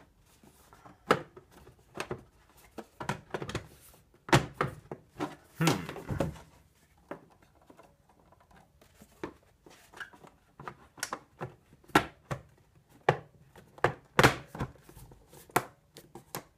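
Hard plastic clicks, knocks and scrapes of a smart sprinkler controller's housing being handled, taken off and pressed back onto its wall bracket. The knocks come at irregular intervals, several of them sharp and loud.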